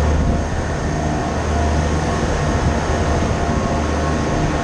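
Steady low mechanical hum of running machinery, with a few faint steady tones above it.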